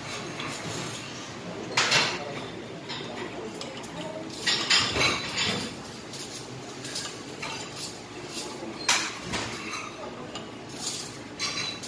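Metal spoons and chopsticks clinking and scraping against black earthenware pots and small side dishes as people eat, in irregular knocks with a few louder clinks about 2, 5 and 9 seconds in.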